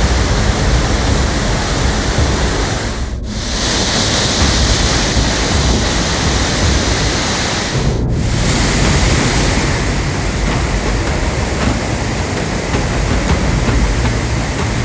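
Waterfall's water rushing loudly and steadily, a dense continuous noise of falling water, with two brief breaks about three and eight seconds in.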